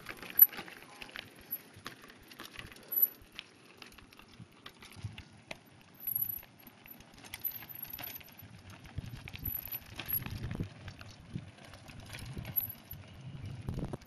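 Mountain bikes rolling down a rocky dirt trail: tyres crunching over gravel and the bikes rattling and clicking over bumps, in irregular bursts.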